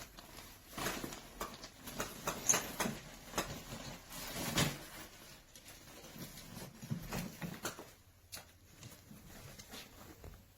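Irregular light clicks, taps and rustles, like objects being handled, busier in the first half.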